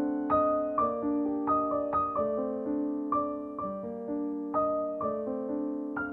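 Background music: a gentle piano piece, its notes struck about twice a second and left to ring.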